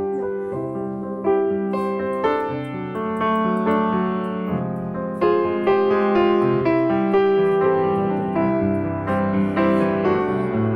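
Background piano music, with a new note or chord struck about once a second.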